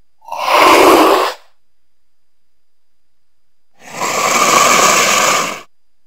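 Cougar hissing twice: a short breathy hiss just after the start, then a longer one about four seconds in.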